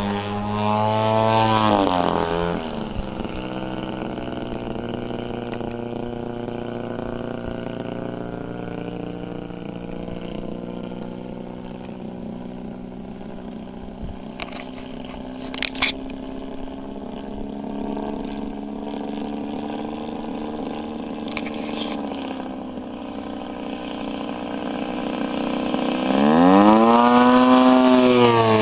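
Engine and propeller of a 33%-scale Aeroworks Extra 300 radio-control aerobatic plane in flight. It makes a loud close pass a couple of seconds in with the pitch dropping, then drones more faintly and steadily as it flies off, and comes back loud near the end with the pitch swinging up and then down as it passes close. A few sharp clicks sound midway.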